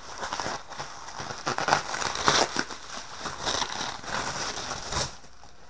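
Plastic bubble wrap being crumpled and pulled off a wooden rifle stock, a busy crinkling and crackling that stops near the end.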